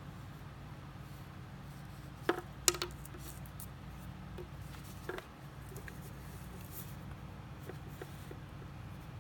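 A few sharp clicks and taps from handling a fishing hook and line on paper, a cluster of three about two to three seconds in and one more about five seconds in, over a steady low hum.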